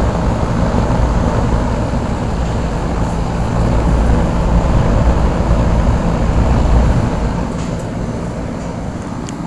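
Lennox Merit Series 1.5-ton heat pump running in cooling mode: a steady low compressor hum under the rushing of the condenser fan, a little quieter over the last two seconds.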